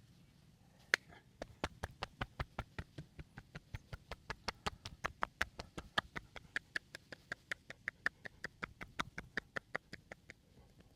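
Hands striking the body in rapid percussive massage, sharp slaps in a steady rhythm of about five a second, starting about a second in and stopping just before the end.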